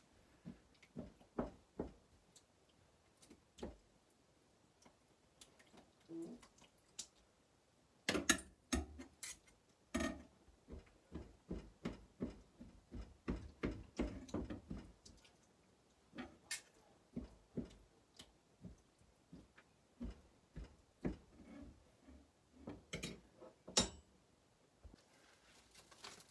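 Irregular light clicks and knocks from kitchen utensils being handled: a knife, a plastic cutting board and a stainless steel tray moved around on a stainless counter while raw chicken breast is prepared.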